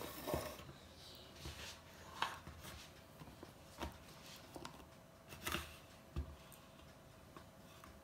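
Light scrapes and small taps of a kitchen knife working soft butter into a container, a handful of short knocks spread through.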